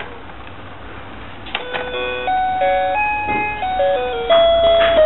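A short click, then a simple electronic jingle plays in clean, chiming single notes that step up and down, starting about a second and a half in.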